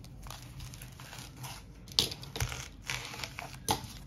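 Magic: The Gathering booster pack wrapper crinkling as hands work at it, trying to tear it open, with sharper crackles about two seconds in and near the end.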